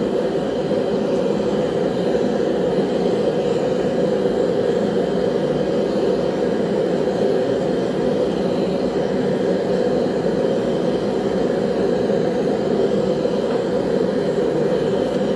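Single-burner gas forge burning steadily, its burner flame giving an even, low rushing noise with no breaks.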